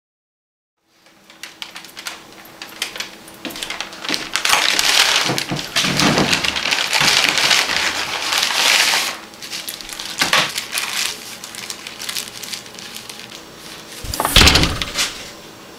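Paper takeout bag rustling and crinkling as it is handled, starting about a second in, with a louder burst of rustling and a thump near the end.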